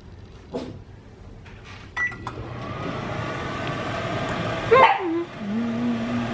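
A microwave oven keypad beep, then the oven running with a steady hum. Near the end comes a loud falling swoop and then a steady low tone.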